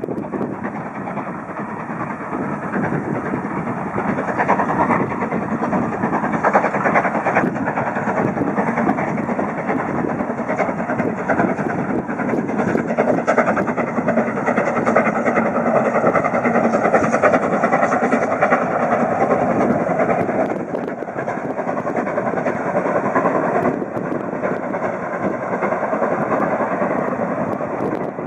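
Steam locomotive hauling a train of coaches along the line, working steadily: a continuous rough mix of exhaust and the rumble of the train.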